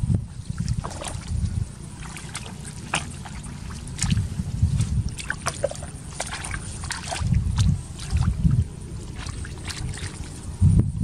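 Irregular splashing and squelching of hands and feet groping through shallow muddy water, a scatter of short wet slaps and clicks. Low rumbles on the microphone swell up several times underneath.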